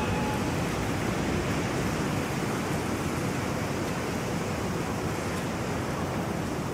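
Steady harbor ambience of sea water and wind: an even, unbroken hiss with no distinct events.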